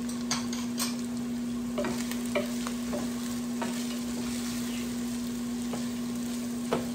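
Sliced onions sizzling in hot oil with ginger-garlic paste in a pan, stirred with a wooden spatula that scrapes and knocks against the pan several times. A steady low hum runs underneath.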